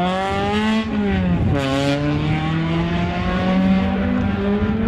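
Peugeot 206 rally car's engine revving hard under acceleration. The pitch climbs, drops sharply about one and a half seconds in at a gear change, then climbs again and holds high.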